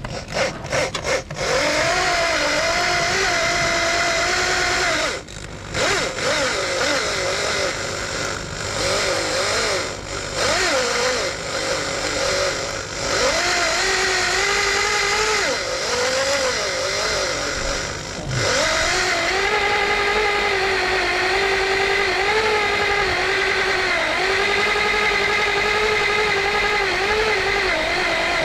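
Electric drill boring out a snapped cylinder-head bolt in a Renault F4R engine; the motor's whine sags and wavers in pitch as the bit bites. A few quick trigger blips at the start and brief stops about five seconds in and again about eighteen seconds in, then steady drilling.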